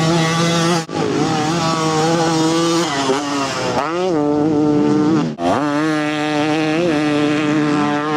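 Two-stroke motocross bike engine running at high revs, the revs dipping and climbing again a few times. The sound breaks off abruptly twice and picks up again.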